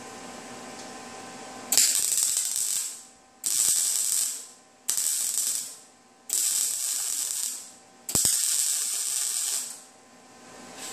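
MIG welder laying plug welds through drilled spot-weld holes in a car's steel inner fender apron: five crackling bursts of about a second each with short pauses between them.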